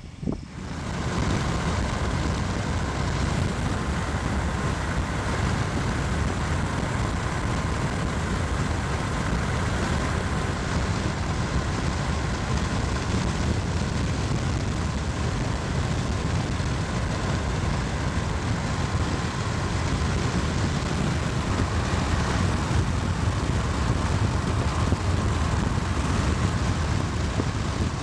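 Steady rushing road and wind noise of a car driving at highway speed, with a deep rumble underneath.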